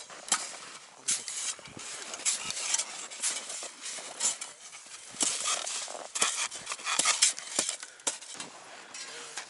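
Several hand-held snow shovels cutting and scraping into packed snow, with irregular crunches and scrapes in quick succession.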